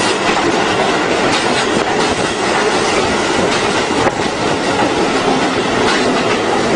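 Train running on the track, a loud steady rush of wheels on rails with repeated clacks as the wheels cross the rail joints.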